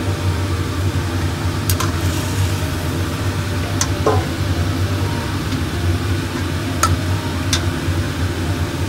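Tofu simmering in broth in a wok, a steady sizzle over a constant low hum, with a ladle knocking sharply against the wok about four times as the tofu is stirred.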